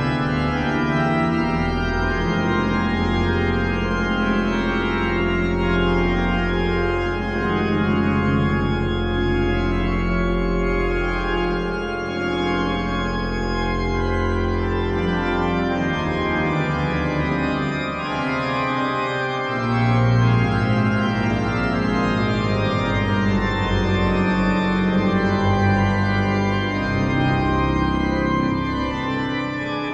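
Church organ playing a slow piece of long held chords over deep sustained bass notes. The bass drops out for a few seconds past the middle, then returns with a louder chord.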